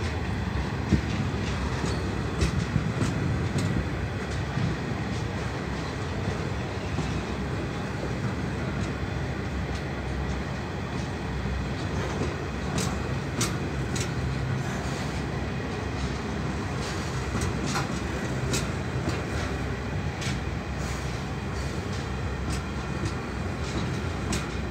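Empty coal hopper wagons of a long coal train rolling past, a steady rumble of wheels over the rails with clickety-clack from the rail joints. A few brief sharp clicks come about halfway through and again a little later.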